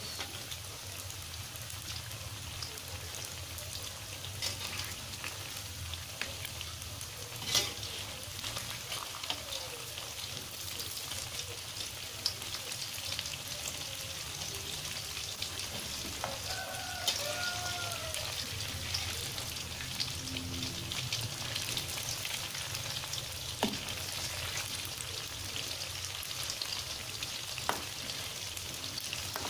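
Risoles deep-frying in hot oil in a steel wok: steady sizzling dense with fine crackles. A few sharper clicks come from the slotted metal spatula working the rolls in the pan.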